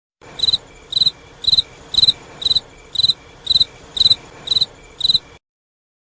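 Cricket chirping sound effect: ten evenly spaced chirps, about two a second, over a faint outdoor background, cutting off suddenly near the end. It is the stock "crickets" meme effect for an awkward silence.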